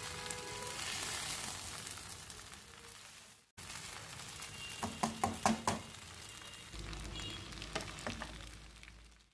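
Stir-fried spaghetti sizzling in a wok as it is tossed and stirred, with a quick run of utensil knocks against the pan about five seconds in. The sizzle cuts out briefly a third of the way through and fades away near the end.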